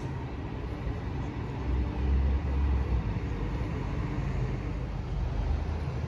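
Road traffic with a city bus driving past: a steady low rumble that swells briefly about two seconds in.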